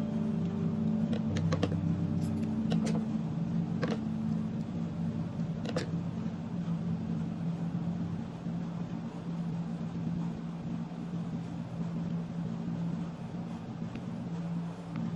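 A steady low hum, with a few sharp clicks in the first six seconds from scissors snipping through the fabric's seam allowance.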